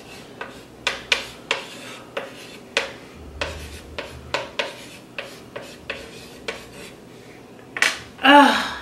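Hand-writing on a small blackboard: a run of short rubbing strokes, about two a second, as letters are written out. Near the end comes a brief vocal sound, the loudest moment.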